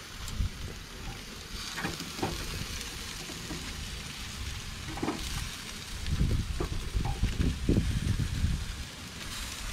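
Raw jerk-seasoned chicken sizzling as it is pressed onto a hot, oiled grill grate, with a steady hiss. There are a few light clicks, and low rumbling thuds about six seconds in.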